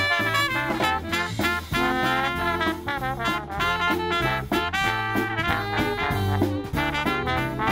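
A big band playing swing live, with trumpets, trombones and saxophones playing over a steady beat.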